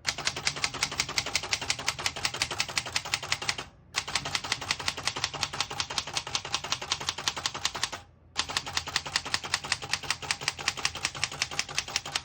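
A 1937 Remington Junior portable typewriter being typed at speed: a quick, even run of type-bar strikes with two brief pauses.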